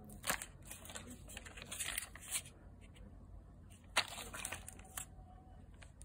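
Plastic food pouches crinkling as they are handled, in a few short bursts; the sharpest comes about a third of a second in and again about four seconds in.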